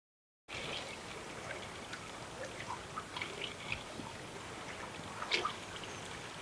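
Floodwater ambience: a steady wash of water with scattered small drips, trickles and splashes, starting suddenly about half a second in.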